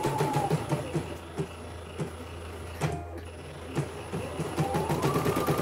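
CNY computerized embroidery machine stitching rapidly with a whirring motor; about half a second in the motor winds down and for a few seconds there are only a few separate clicks, then the motor winds back up and fast stitching resumes near the end. A steady low hum runs underneath.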